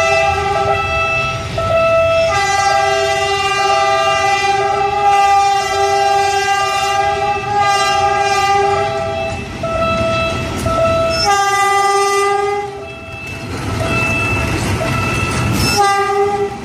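GE U15C diesel-electric locomotive's horn sounding a chord in several long blasts as the train approaches. Near the end the rumble of the locomotive and its cars rolling past close by rises under the last blast.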